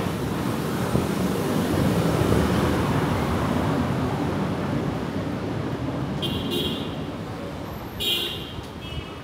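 Road traffic passing close by, a bus among it: a steady rumble, loudest in the first few seconds and then fading. Two short vehicle-horn toots sound about two-thirds of the way in and near the end.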